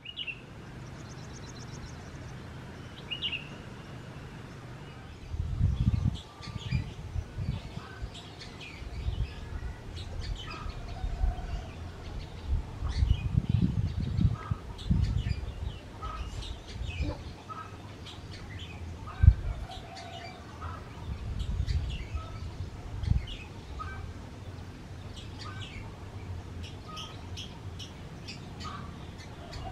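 Birds chirping and calling throughout, over a low steady drone from an approaching CC 201 diesel-electric locomotive working uphill. Irregular low gusts buffet the microphone several times, and there is one sharp thump about two-thirds of the way through.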